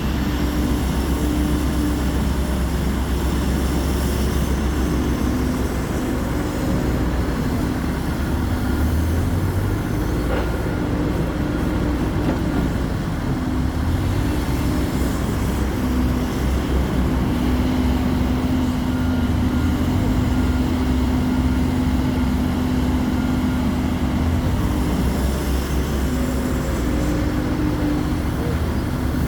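Hidromek 140LC excavator running and digging: a steady diesel engine with a hum that shifts slightly in pitch now and then.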